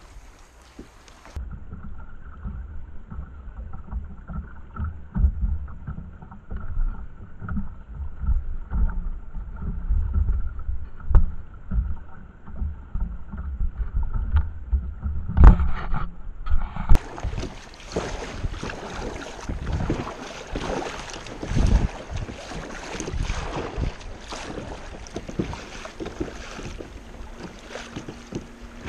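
Sit-on-top kayak being paddled over choppy water: a double-bladed paddle dipping and splashing with each stroke, with wind buffeting the microphone. The first half is dull and muffled with low thumps; a little past halfway the sound turns clear and full of splashing.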